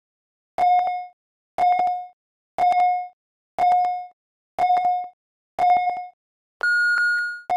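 Countdown timer beeping: six short electronic beeps about a second apart, then one longer, higher-pitched beep that signals the end of the rest and the start of a lift.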